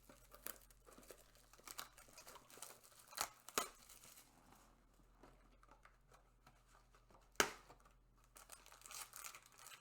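Packaging of trading-card packs being torn open and crumpled by hand: faint irregular crinkling with a few sharper crackles, the loudest about three and a half seconds and seven seconds in.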